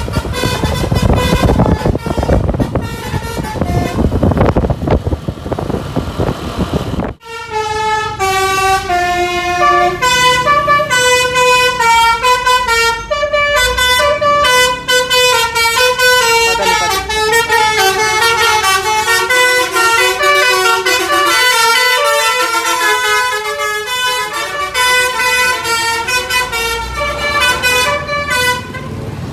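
Bus telolet "basuri" multi-tone air horn playing a tune, with a melodica-like sound. For about the first seven seconds the horn notes are half buried in loud road and engine noise. After an abrupt break, a clear melody of quickly stepping notes plays.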